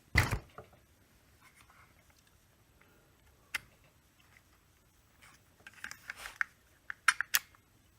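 Clicks and knocks from hands working the choke rod and linkage on a small top-handle chainsaw: one sharp knock at the start, a single click midway, then a quick run of clicks near the end.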